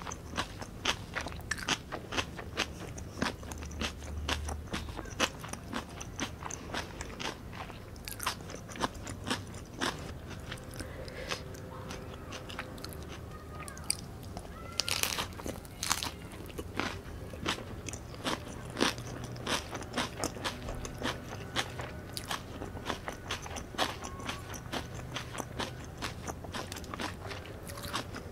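Close-miked chewing of a Vietnamese fresh spring roll, with crisp lettuce inside the rice paper, giving a steady run of wet, crunchy clicks. A louder crunching bite comes about halfway through.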